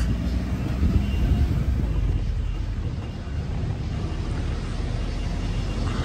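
Steady low rumble of a resort buggy driving along, heard from on board.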